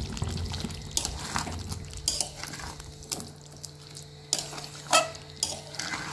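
Long metal spatula scraping and knocking against a metal kadai while stirring thick chicken curry, in irregular strokes, the loudest about five seconds in.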